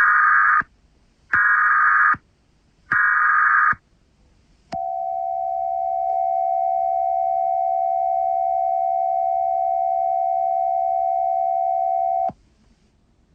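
Emergency Alert System header: three short bursts of warbling data tones, then a steady attention tone held for about seven and a half seconds, which cuts off sharply.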